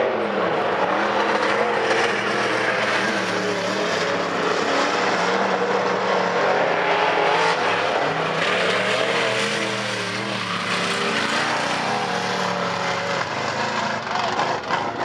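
Several dirt-track modified race cars racing, their engines running hard at once, each note rising and falling as the drivers accelerate and lift through the turn.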